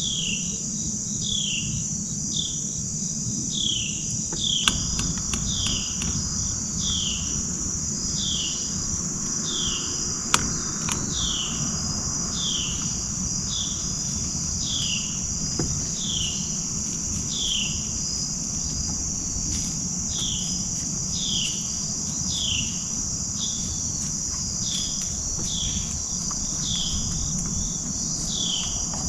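Evening insects: a steady high-pitched drone with short falling chirps repeating about once a second. Two faint clicks come about five and ten seconds in.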